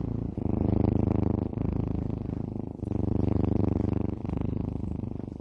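Domestic cat purring close up: a continuous low, fast-pulsing rumble that swells and eases in turn with its breathing in and out.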